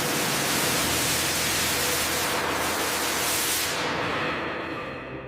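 A loud, steady hiss like a jet of spray or air. It thins out from about four seconds in and fades away near the end.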